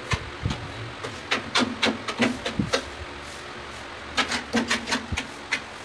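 Sharp taps on a large ceramic tile as it is bedded into its mortar. The taps come in quick runs, one about a second in and another about four seconds in.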